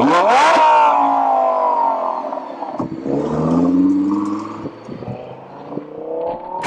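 Car engine revving hard: it starts suddenly, its pitch shoots up and then sinks away over about two seconds. A second rev comes about three seconds in, rising and falling more slowly.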